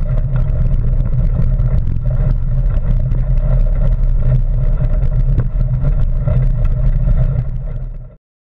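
Mountain bike rolling along a gravel trail, heard through a bike-mounted GoPro: a steady low rumble of tyres and wind buffeting the microphone, with scattered ticks and rattles from the gravel. It cuts to silence near the end.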